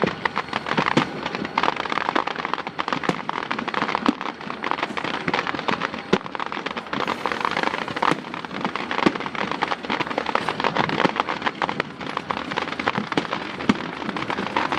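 Fireworks crackling: a dense, continuous crackle of small pops, with a few louder sharp bangs scattered through.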